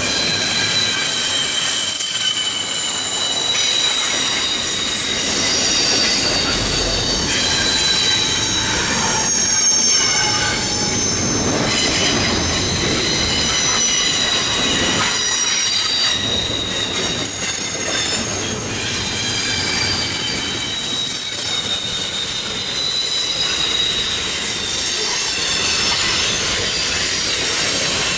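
Wheels of a long CN intermodal freight train squealing against the rail on a sharp curve as the cars roll past. Several high-pitched squeals overlap, each starting, stopping and shifting pitch, over the steady rumble of the wheels.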